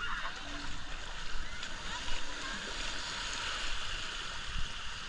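Sea water washing steadily on the shore, with wind rumbling on the microphone.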